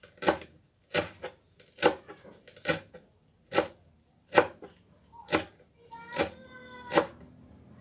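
Knife chopping celery leaves on a cutting board, about ten sharp, slow, evenly spaced strokes.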